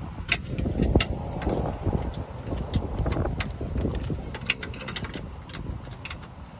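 Scattered sharp metal clicks and knocks of hand tools and parts being worked under the hood during an alternator replacement, over rustling, rumbling handling noise.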